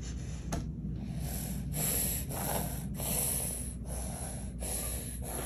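A baby breathing hard in a rapid run of short, noisy puffs, about one every half to three-quarters of a second, with no voice in them.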